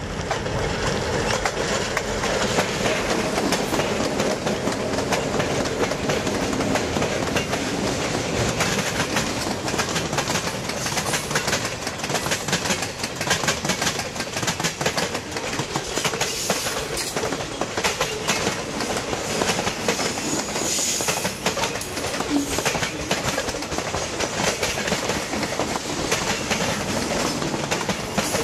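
Freight train passing close by: its EMD GP38 diesel locomotives working in the first few seconds, then a long string of freight cars rolling past with a steady clickety-clack of wheels over the rail joints.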